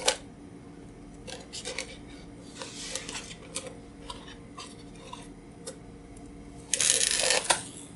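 Plastic slinky's coils clicking and rattling softly as it is handled on top of a stack of cardboard boxes, then a louder clattering rustle about seven seconds in as it goes down the boxes.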